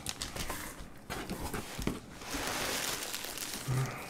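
Plastic packing and cardboard rustling as a boxed item is dug out of a shipping carton. Scattered light clicks give way to a louder, steady rustle a little over two seconds in.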